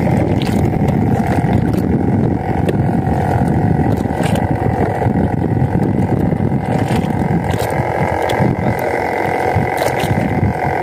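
A boat's engine running steadily, mixed with wind rumbling on the microphone, with a few sharp clicks scattered through.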